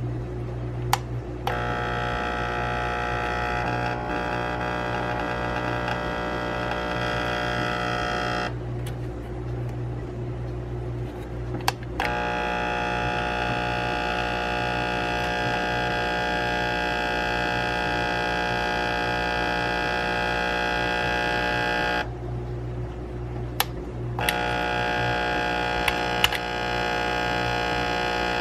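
Oster coffee grinder's electric motor giving a steady buzzing hum, the sign that it is failing to grind. The hum stops twice, at about 8 seconds and again near 22 seconds, and comes back a few seconds later each time, with sharp switch clicks around the stops and restarts.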